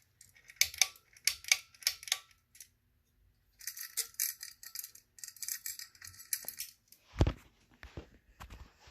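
A run of sharp clicks, then a metallic jingling rattle for about three seconds, and a single thump about seven seconds in, as the hugger ceiling fan is handled to set it to reverse.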